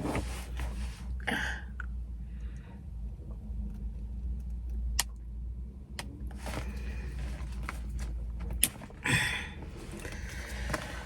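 Rustling and handling of a new handbag and its packaging, in short bursts, with a few sharp clicks. A low steady hum lies under it and cuts off about nine seconds in.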